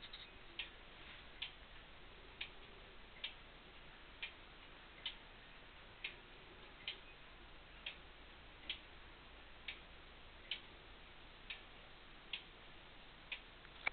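Howard Miller triple-chime grandfather clock ticking steadily, a sharp tick of the pendulum escapement a little under once a second.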